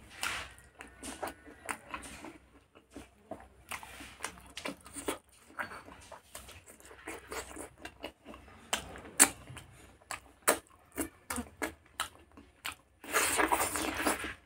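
Close-miked eating sounds of pork curry and rice eaten by hand: wet chewing, lip smacks and many short sharp clicks. A louder, dense stretch of biting and munching comes near the end as another handful goes into the mouth.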